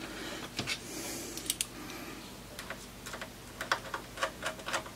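Scattered light clicks and ticks of a small screwdriver and metal screw against a metal mounting hole, with the screw failing to start its thread.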